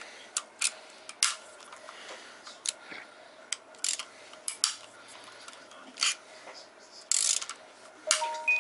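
Hand ratchet on a long extension clicking in short, irregular spurts as oil pan bolts are broken loose, with a brief metallic ring near the end.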